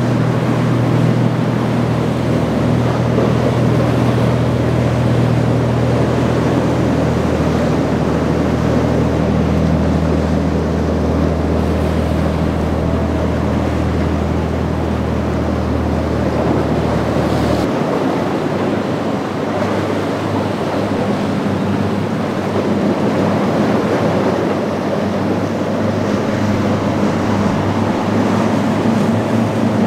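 Boat engines running steadily under rushing, breaking surf. The low engine hum shifts abruptly a little past halfway, as a different boat's engine takes over.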